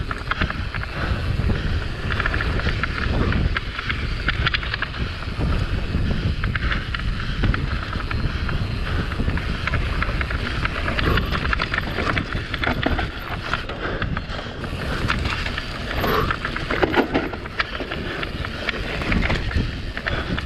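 Mountain bike descending a dirt trail at speed: wind rushing over the camera microphone, with tyres rolling on dirt and the bike rattling over bumps.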